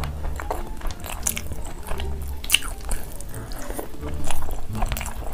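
Close-miked eating: biting into curried chicken drumsticks and rice and chewing, with many short sharp clicks over a low steady hum.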